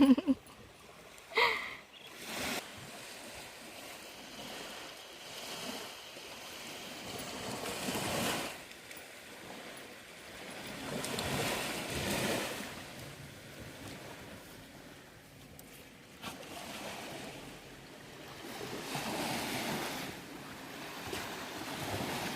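Sea waves washing up a sandy beach, the surf swelling and falling back every few seconds, with a couple of short pitched sounds in the first two seconds.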